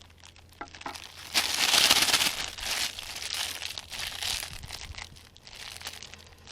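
Thin plastic bag crinkling as it is handled and squeezed to push bait dough into one corner, loudest about a second and a half in.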